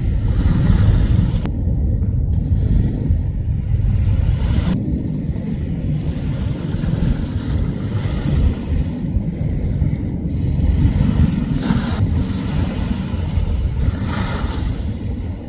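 Wind rumbling on the microphone over the wash of waves along the shore. The surf rises briefly near twelve and again near fourteen seconds in.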